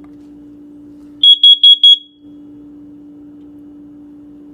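Plug-in carbon monoxide alarm sounding four quick, loud, high-pitched beeps about a second in. This four-beep pattern is the standard carbon monoxide alarm signal.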